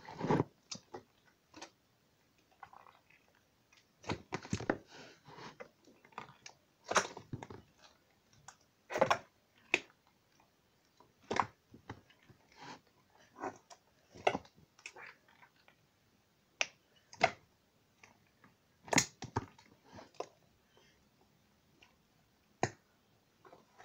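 A big lump of thick slime being kneaded and folded by hand in a plastic tub to mix it: irregular short squelches and crackling pops with quiet gaps between them.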